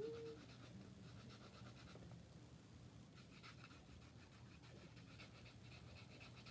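Near silence: room tone with a faint steady hum and faint rapid ticking, after a girl's held sung note trails off at the very start.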